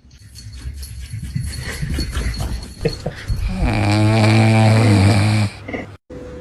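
A few seconds of rustling and shuffling, then a dog's loud, low, drawn-out vocal sound lasting about two seconds before it cuts off.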